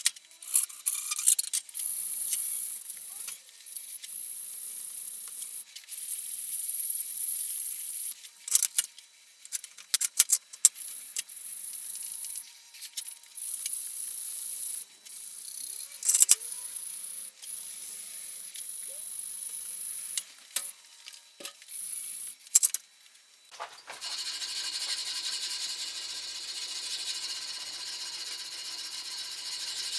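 Abrasive strip pulled back and forth around a wooden birch-burl knife handle, a high rasping hiss in uneven stretches with short gaps and a few sharp clicks. About 24 seconds in it changes to a hand file scraping in steady strokes.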